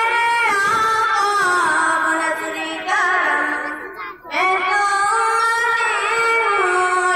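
A high voice singing a song with musical accompaniment, holding long notes, with a brief pause between phrases about four seconds in.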